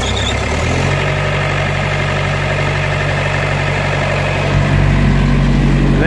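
Thermo King trailer refrigeration unit running with a loud, steady engine-and-fan noise over a low hum, as it pumps the refrigerant gas back into its collection point after being stopped.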